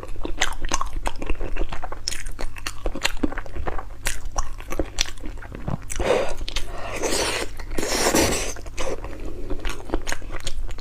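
Close-miked chewing and crunching of bony stewed toad, with many sharp crunches and two longer, softer noisy stretches about six and eight seconds in.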